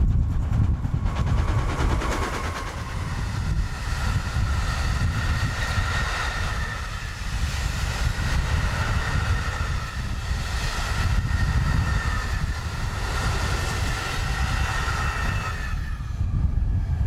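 Diesel-hauled freight train passing close by: the locomotive goes by, then a long rake of covered hopper wagons rolls past with a heavy rumble. From about four seconds in, a high steady whine sits over the rumble. It fades near the end as the last wagons clear.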